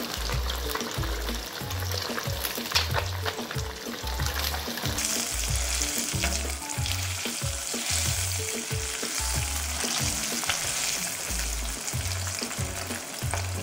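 Fish pieces deep-frying in hot oil in a wok, a steady dense sizzle, with a wooden spatula stirring and turning them. The hiss grows brighter about five seconds in.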